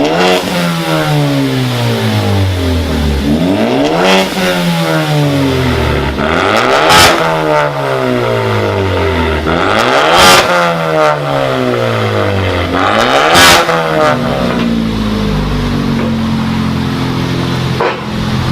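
Ford Focus ST engine and high-flow modified exhaust free-revving in about five blips roughly three seconds apart, the pitch climbing quickly and sinking slowly after each, with a sharp crack at the top of three of them. It then settles to a steady idle about fourteen seconds in.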